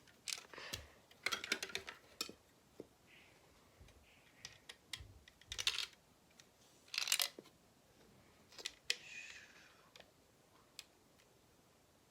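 Plastic Lego bricks being handled and fitted together: scattered small clicks and short rattles, with a few louder clattering bursts.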